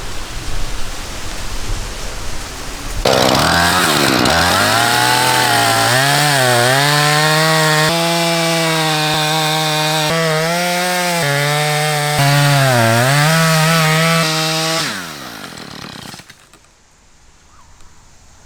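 A two-stroke chainsaw is throttled up hard about three seconds in and cuts into the trunk of a dead standing tree, its pitch dipping several times as the chain bogs in the wood. Near the end it winds down and drops away.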